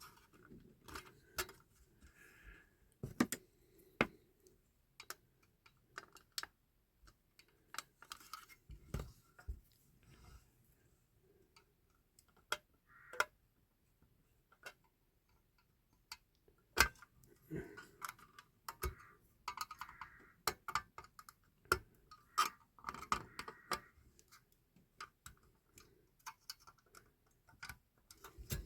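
Irregular small clicks, taps and short scrapes of hand tools and parts on a 1/18 scale diecast model car being dismantled, as a part is worked loose to push it out.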